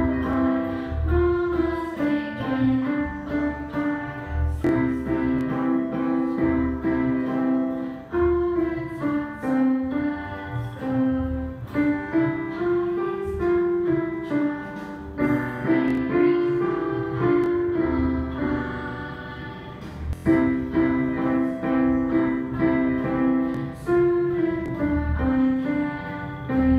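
A child playing a simple beginner piano piece on a digital piano, a melody over steady low bass notes. After a short pause about three-quarters of the way through, the piece starts over from the beginning.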